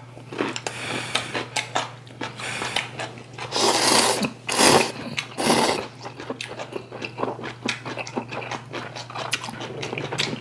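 Two people slurping ramen noodles and chewing, with many small wet clicks of chewing and three louder slurps about four to six seconds in.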